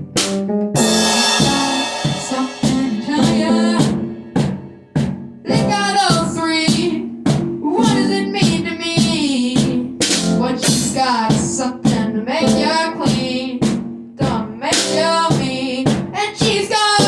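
Rock band playing: a drum kit hitting snare and bass drum over sustained guitar chords, with a melody line that bends in pitch running through the middle.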